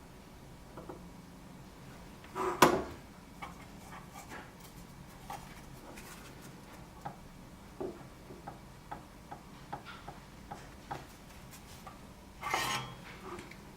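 Tools and parts being handled on a workbench during a circuit-board repair: scattered light clicks and taps, a louder clatter about two and a half seconds in, and a rustling scrape near the end, over a faint steady hum.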